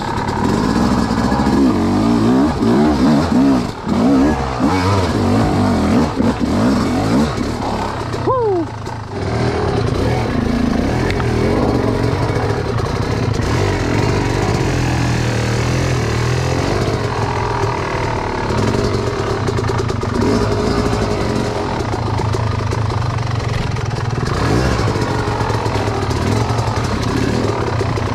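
Yamaha dirt bike engine running under the rider as it is ridden slowly over rough, rocky trail, the revs rising and falling with the throttle. About eight seconds in the revs drop sharply, then the engine carries on steadily.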